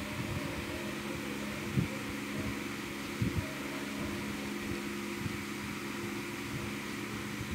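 A steady mechanical hum, with a few soft low thumps about two seconds in and again about three seconds in.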